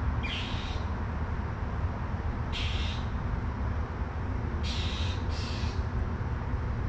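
A bird gives four short, harsh calls, each about half a second long: one near the start, one about two and a half seconds in, and two close together near five seconds. Under the calls runs the steady low rush of creek water flowing over a rock ledge.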